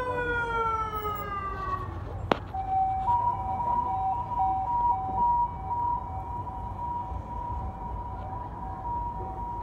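Motorcade sirens: a siren tone falling slowly in pitch fades out in the first two seconds. From about two and a half seconds in, a two-tone hi-lo siren alternates steadily over the low rumble of passing vehicles, with one sharp click just before it starts.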